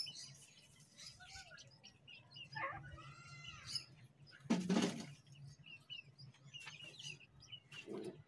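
Francolin chicks peeping: many short, high chirps throughout, with a louder burst about four and a half seconds in.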